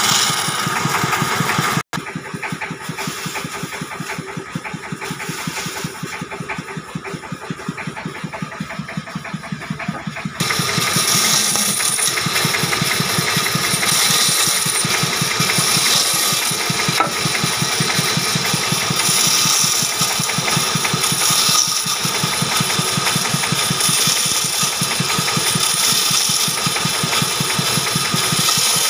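Band saw running and cutting a wooden block, a steady drone with fast, even pulsing. The sound drops out for an instant about two seconds in, and from about ten seconds in it is louder, with more hiss.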